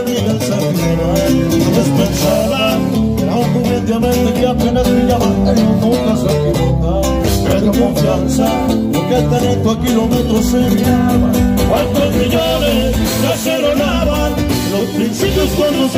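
Live norteño band music led by accordion and guitar, amplified through the stage PA.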